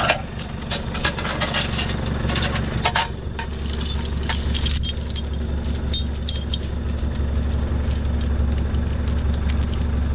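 LKT forestry skidder's diesel engine running steadily at low revs, with a run of metallic clinks and rattles over the first half.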